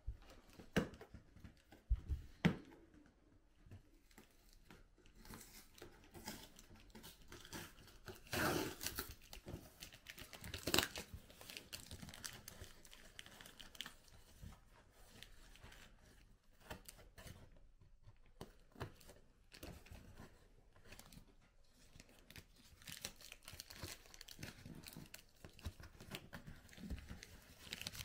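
Flat cardboard package being torn open and handled by hand: cardboard tearing and rustling with scattered taps and knocks, the longest tear about eight seconds in and a sharp one near eleven seconds.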